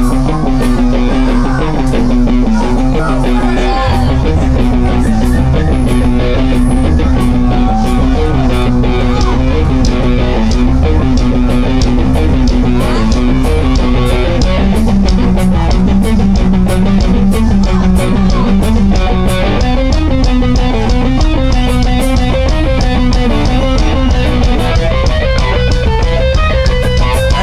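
Punk rock band playing live: loud distorted electric guitars over a drum kit, with a heavier low end joining about four seconds in.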